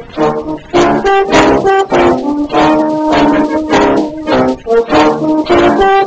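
Background music led by brass instruments, playing a melody of short and held notes that steps up and down.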